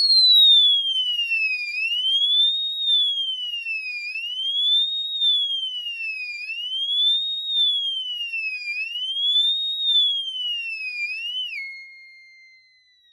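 Cerberus Pyrotronics MC-S17-F electronic fire-alarm horn strobe sounding its siren tone: one loud electronic tone sweeping slowly up and down, one rise-and-fall about every two and a half seconds. Near the end the pitch drops to a steady lower tone that fades out.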